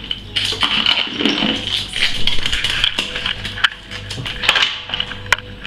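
Loose metal hand tools clinking and rattling against each other as they are picked up and fitted back into a toolbox, in quick irregular clicks.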